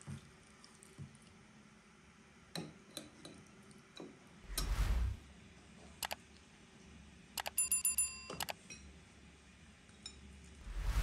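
Clinks and scrapes of tableware as dessert is served with ice cream: scattered light utensil clicks on dishes and a short scrape about halfway through. Then comes a quick run of about six sharp clinks of a metal spoon on a dish, each ringing on briefly.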